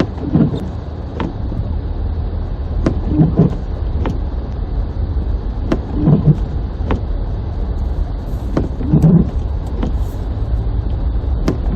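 Car driving on snowy streets, heard from inside the cabin: a steady low road and engine rumble, with a soft double thump about every three seconds and scattered light clicks.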